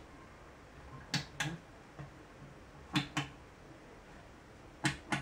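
Metal push buttons on a stainless-steel escape-room memory box clicking as they are pressed: three pairs of sharp clicks about two seconds apart, as the remembered light sequence is keyed in.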